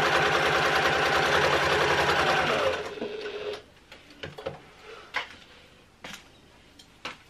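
Janome HD9 sewing machine, freshly cleaned and re-oiled, stitching a test row through folded vinyl at a steady fast speed, then slowing and stopping about three seconds in. A few light clicks and knocks follow.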